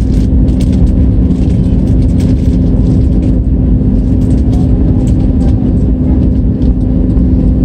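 Airbus A320 cabin noise: a loud, steady rumble of engines and airflow with a constant low hum and faint rattling clicks.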